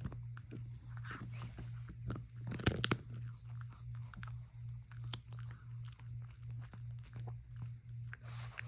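A dog chewing and crunching food, with many short crisp crunches and a louder burst of crunching about three seconds in. A low hum pulsing about twice a second runs underneath.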